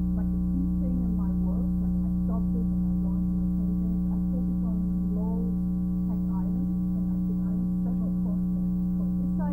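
Loud, steady hum with many overtones that does not change, and a woman's voice talking faintly underneath it.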